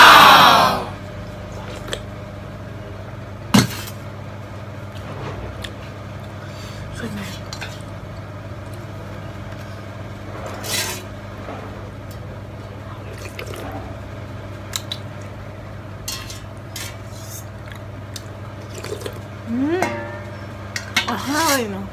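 Eating noodle soup from a stainless steel bowl: chopsticks clicking against the bowl and a short slurp about halfway through, over a steady low hum. A loud vocal exclamation comes right at the start, and brief voice sounds near the end.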